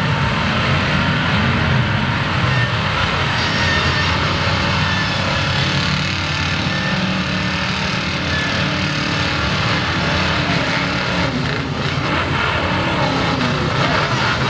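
A lifted pickup truck's engine runs hard and loud under load, steady with no big rises or drops, as its big mud tires churn through deep mud.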